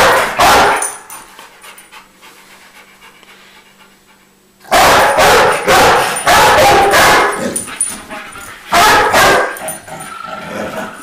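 Rottweiler barking in loud, short bursts: a bark at the start, a run of about four barks about five seconds in, and one more about nine seconds in.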